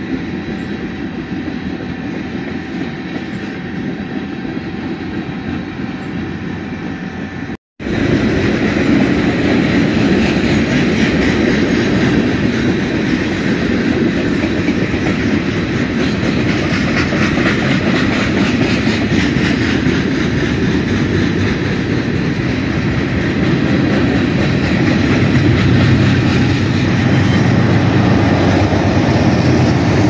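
Freight train of refrigerated boxcars rolling past close by, its steel wheels rumbling and clacking on the rails. There is a brief dropout about eight seconds in, after which it is louder. Near the end a deeper rumble builds as a diesel locomotive comes by.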